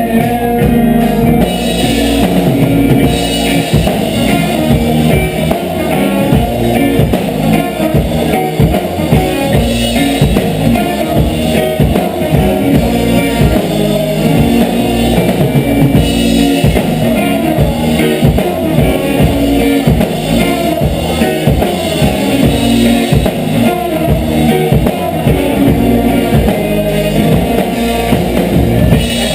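Reggae band playing a dub instrumental passage: drum kit, guitar and heavy bass in a steady beat, with no vocals.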